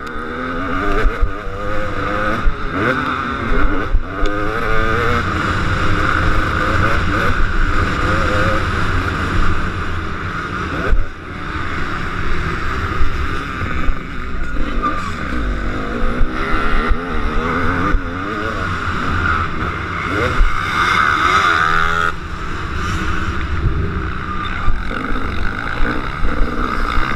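KTM SX250 two-stroke motocross engine revving hard and easing off again and again, its pitch climbing and dropping with the throttle and gear changes.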